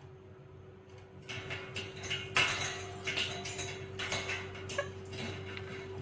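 Indian ringneck parakeet scraping and chewing a plastic measuring spoon with its beak: a scratchy, rasping run of small clicks and scrapes starting about a second in. A steady hum runs underneath.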